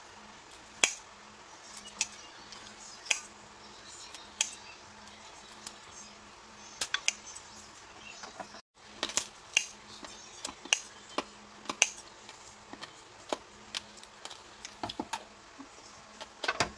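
Metal kitchen tongs clicking and tapping as slices of roast pork belly are laid on a noodle salad: irregular sharp clicks, about one or two a second, over a faint steady hum.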